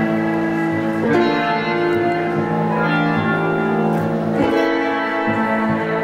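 Instrumental music with sustained held chords, the chord changing about a second in and again past the middle.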